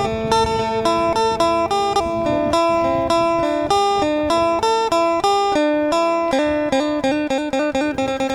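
Intro music: a plucked-string melody, guitar-like, picked note by note at a quick, steady pace.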